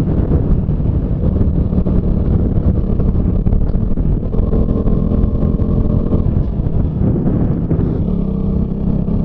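Motorcycle engine running steadily while riding, over continuous road rumble; the engine note shifts slightly about four and a half seconds in and again near eight seconds.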